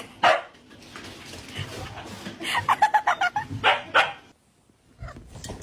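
A dog barking in short bursts: one bark just after the start, then a quick run of yips and barks about two and a half seconds in.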